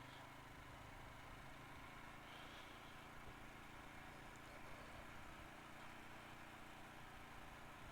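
CFMOTO CForce 500 ATV engine running faintly and steadily, with no change in pitch.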